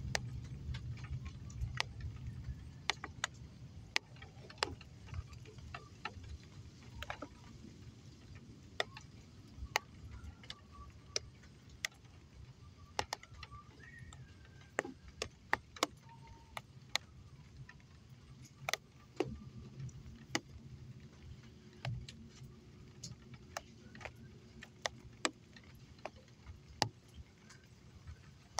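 A low roll of thunder dying away over the first few seconds, followed by scattered, irregular sharp ticks of rain drops dripping, with a faint low rumble swelling again about twenty seconds in.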